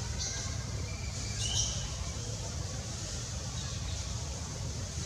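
A few short, high animal squeaks or chirps, one near the start and a cluster about a second and a half in, over a steady low rumble and a faint high hiss of outdoor ambience.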